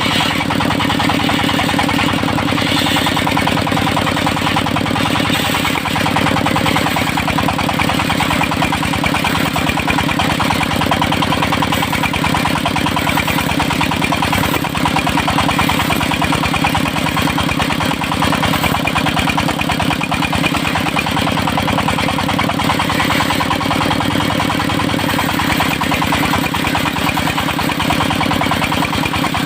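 Engine of a portable circular sawmill running steadily at an even speed, with a fine regular firing beat throughout.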